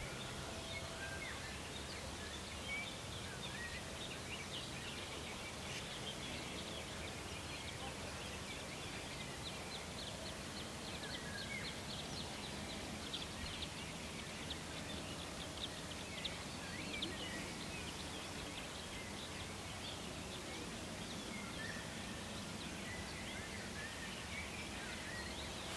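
Summer riverside ambience: small birds chirping and calling over and over, with a steady low hiss underneath.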